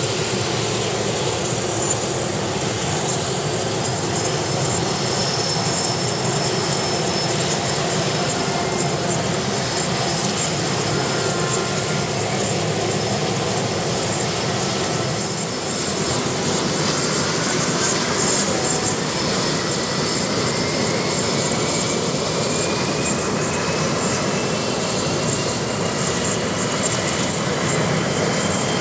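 UH-60J rescue helicopter's twin turboshaft engines starting up: a steady turbine whine and rumble, with a high whine that rises in pitch and levels off a few seconds in, and another whine rising steadily through the second half as an engine spools up and the rotors begin to turn.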